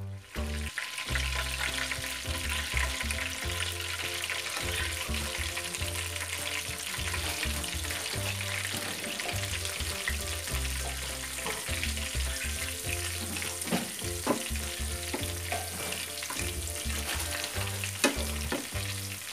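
Batter-coated stuffed squid frying in hot oil in a nonstick pan, a steady dense sizzle as more pieces are laid into the oil, with a few sharp clicks of a metal spatula against the pan near the end. Background music plays underneath.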